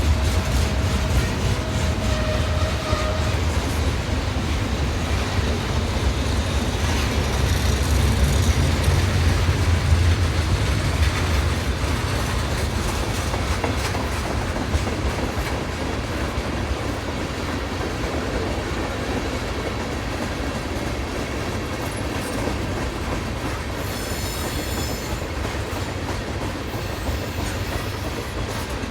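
Freight train rolling past: a steady low rumble of wheels and cars with clickety-clack over the rail joints. Near the end, a brief high-pitched wheel squeal.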